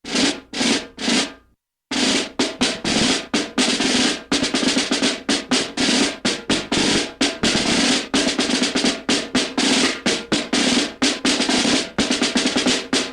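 Snare drum sound effect: three single hits about half a second apart, then after a short pause a fast run of strikes, about four or five a second.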